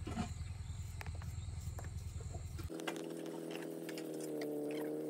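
Knife cutting into a cucumber held in the hand: a scatter of small crisp cuts. A low rumble fills the first half and stops abruptly about halfway through, when a steady hum of several tones comes in.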